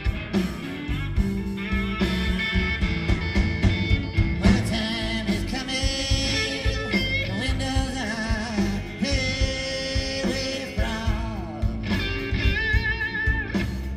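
Live rock band in an audience recording, with electric guitars, bass and drums playing together. From about five seconds in, and again near the end, a high lead line slides and wavers in pitch over the band.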